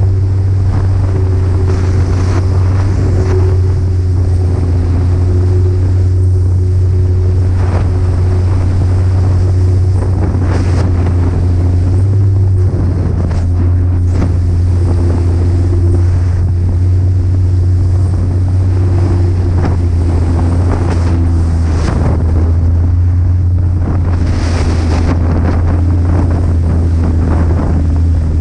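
Snowmobile engine running at a steady speed, a loud constant drone with wind buffeting the microphone.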